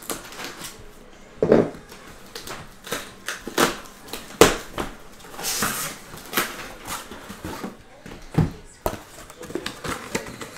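A taped cardboard shipping box being opened and handled by hand on a table: a run of knocks, scrapes and rustles of cardboard, with a longer tearing rasp about halfway through as the tape gives and the flaps are pulled open.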